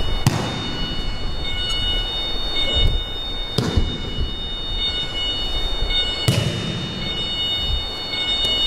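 Three sharp slaps of a body landing on the dojo mat during aikido throws and breakfalls, about three seconds apart, over a steady background hum with a faint high whine.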